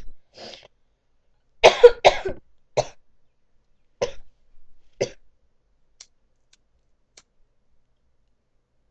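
A young woman coughing in a fit of about six short coughs, the loudest two close together about two seconds in, with the last one about five seconds in.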